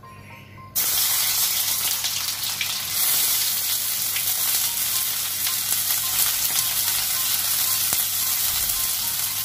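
Chopped onions sizzling in hot oil in a kadai, starting suddenly about a second in and then frying steadily.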